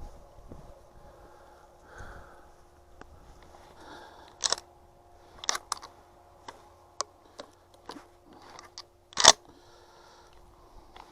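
Dry brush and twigs crunching and snapping as someone pushes through cover: several sharp cracks over a faint rustle, the loudest about nine seconds in.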